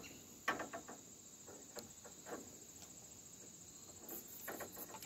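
A steady, high-pitched insect trill, with a few brief sharp clicks and rustles over it, the loudest about half a second in.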